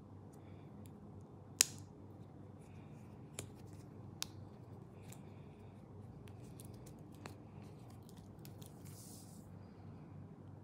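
Small hand-handling sounds over a low background hum: a sharp click about a second and a half in, a few softer clicks and light rustles after it, and a brief hiss near the end.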